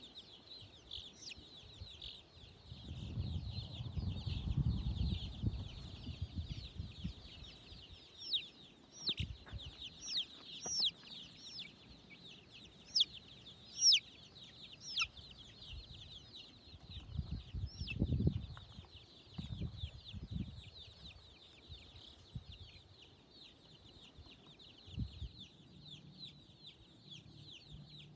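Baby chicks peeping continuously, many high chirps overlapping, with some louder single peeps standing out in the middle. Low rumbling comes in twice, about three seconds in and again around eighteen seconds.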